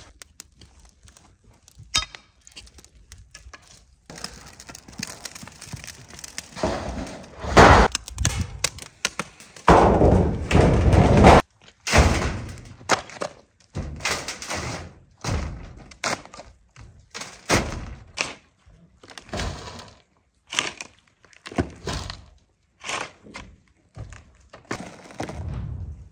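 A spade scraping into a pile of soil and gravel and throwing it onto a metal sheet laid over a tandoor pit, sealing the pit. A run of scrapes and thuds, heaviest and most continuous in the first half, then single shovelfuls about once a second.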